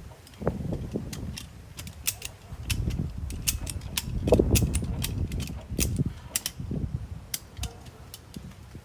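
Ratchet strap being cranked tight around a tractor tire: a run of sharp, irregular ratchet clicks over low thumps and creaking. The strap is squeezing the tread to push the tire's beads out onto the rim so it will seat.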